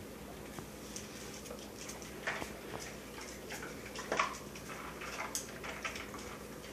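Scattered light clicks and taps on a tile floor from a plastic baby snack cup being handled and dogs' claws, with two louder knocks about two and four seconds in.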